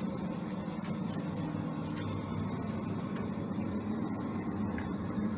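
Steady hum and rush of an automatic stoker boiler running, its blower fan forcing air through the burning fuel in the open combustion chamber.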